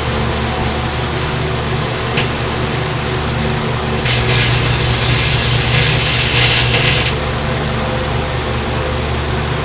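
Microwave oven running with a steady electrical hum while a crushed aluminium drink can inside arcs. A short crack about two seconds in, then about three seconds of loud crackling and buzzing sparks from about four seconds in.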